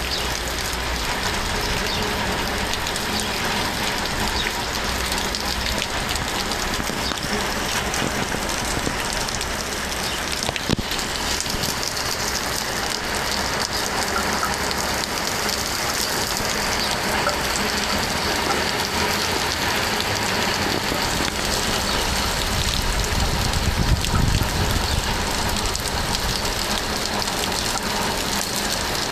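Steady rain falling, a dense hiss of drops pattering on surfaces, with a brief low rumble about 24 seconds in.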